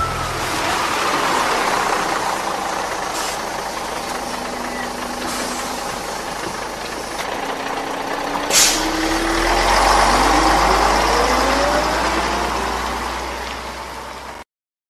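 City bus sound effect: the engine runs steadily, then about eight and a half seconds in there is a short sharp air-brake hiss. The bus then pulls away with a rising whine as it speeds up, and the sound cuts off suddenly near the end.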